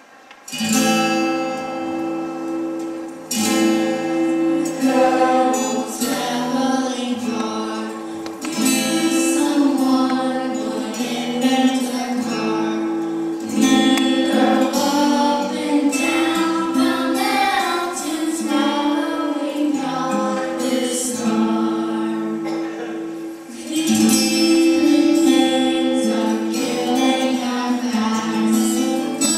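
A song sung with instrumental accompaniment, starting about half a second in.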